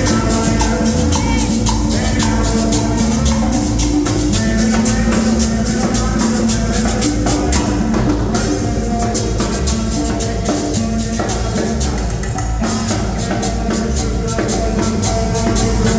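Dance music with a fast, steady beat of drums and shakers over held pitched notes.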